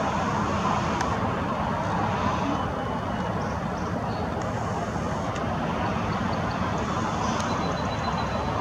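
Steady background noise of road traffic, an even wash of sound with no distinct events.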